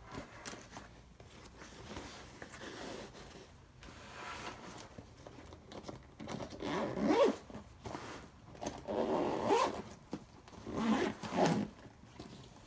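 A zipper on a laptop backpack being pulled in a run of strokes, faint at first and loudest in the second half, with the bag's fabric rustling under the hands.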